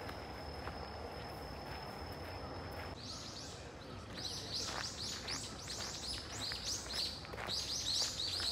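Birds chirping among trees. From about three seconds in comes a rapid, overlapping run of short high chirps. Before that a thin, steady high whine is heard.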